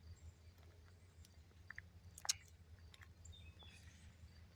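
Near silence: a faint steady low hum with a few small clicks, one sharper click about two seconds in.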